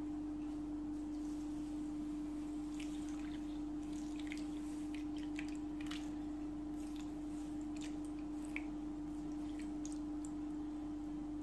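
A steady single-pitched hum, with faint trickles and drips as cold water is poured from a glass bowl over dry fine couscous in a wooden bowl.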